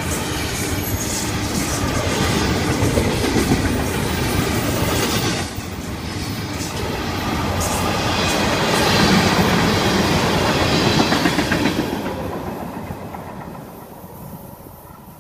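Freight train of loaded double-stack container cars and tank cars rolling past close by, wheels clicking and rumbling over the track. The sound fades away over the last few seconds as the end of the train passes.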